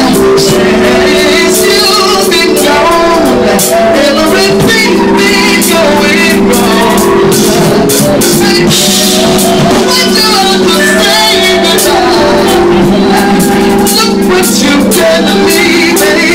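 Live band playing loudly: a man singing into a microphone over a drum kit and keyboards.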